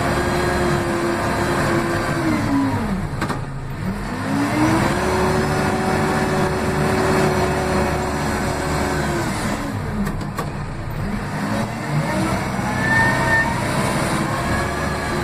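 Case 580M backhoe loader's diesel engine, heard from inside the cab near the throttle, revving up, holding at high revs and dropping back in repeated cycles. It drops about three seconds in, revs up again for about five seconds, drops once more, and climbs again for the last few seconds. There is a short clunk at two of the low points.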